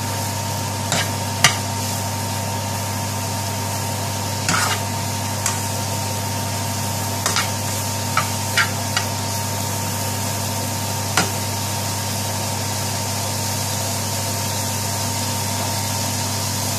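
Button mushrooms and spiced onions sizzling in a frying pan while being stirred, the stirring utensil knocking sharply against the pan several times during the first eleven seconds or so, over a steady low hum.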